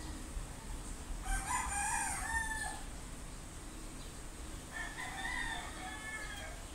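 Rooster crowing twice: a loud crow lasting about a second and a half, starting about a second in, then a softer crow near the end.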